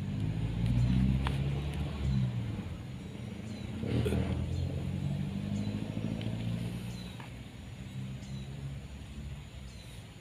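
An engine running, its low pitch shifting up and down. It is loudest about a second in and again about four seconds in, then fades away.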